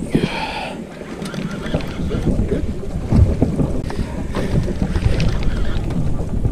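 Wind buffeting the microphone over a steady low rumble, with scattered clicks from a multiplier boat reel being cranked against a fish that is pulling down. A brief high-pitched whine sounds at the very start.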